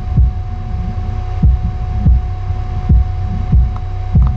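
Vibe Slick 12-inch subwoofer in a sealed MDF box playing the bass line of a hip-hop track: six deep kick-drum thumps over sustained low bass notes.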